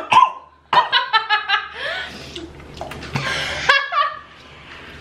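People laughing: a quick run of short laugh pulses about a second in, then a higher, rising laugh past the middle.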